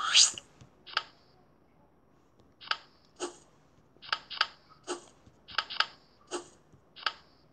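Tile-flip click sounds from a tablet memory-matching game: a quick rising whoosh at the start as a matched pair clears the board, then about a dozen short sharp clicks, often in pairs, as tiles are turned over.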